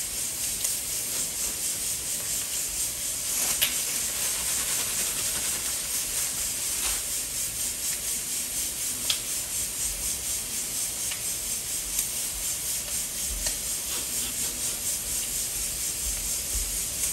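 Dry breadcrumbs rustling and scratching under hands pressing a fish fillet into them on a plastic board, over a steady high hiss, with a few light clicks.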